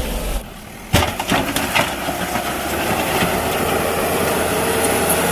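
Diesel engine of a backhoe loader running steadily, with a sharp knock about a second in and a few lighter clanks after it.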